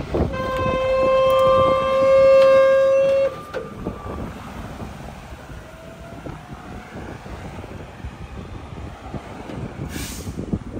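A vehicle horn sounds for about three seconds as one steady note, with a second, higher note joining about a second in, then cuts off. Quieter engine and road noise follow, with a short hiss near the end.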